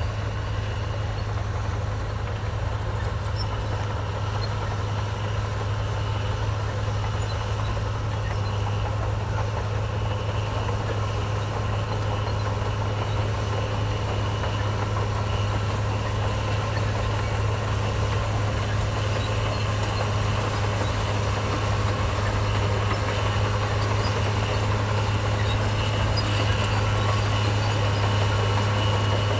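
Heavy diesel engine of earthmoving machinery running steadily with a low, even drone, growing slightly louder toward the end.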